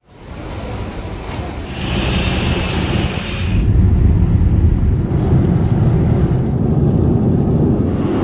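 Boeing 787 cabin noise during takeoff: a loud, steady low rumble of the jet engines that builds over the first few seconds, with a higher hiss over it that cuts off about three and a half seconds in.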